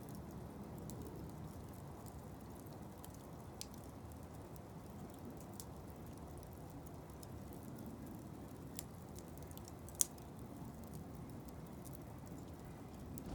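Blocks of wood burning in a fire basket: a low steady rush of flame with sparse sharp crackles and pops, one louder pop about ten seconds in.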